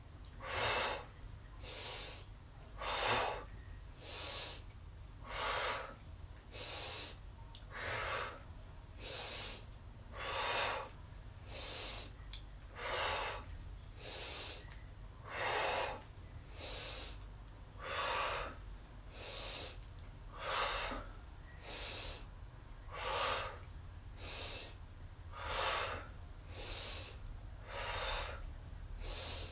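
A woman doing fast rhythmic breathwork: quick inhales through the nose and forceful exhales through the mouth, alternating stronger and weaker breaths, about one full breath in and out every 1.3 seconds.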